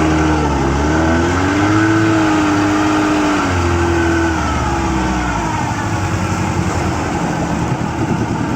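1967 Evinrude Fastwin 18 hp two-stroke twin outboard running in forward gear. Its pitch rises a little and holds, then falls as it is throttled back, and it settles into a slower, pulsing run about five seconds in.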